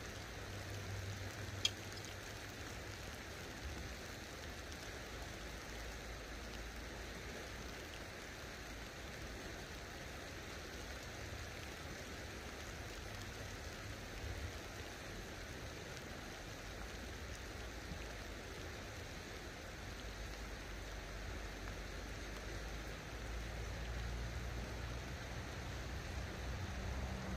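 Light rain falling on the river and the bank, a steady soft patter. One sharp click about two seconds in, with a low rumble underneath throughout.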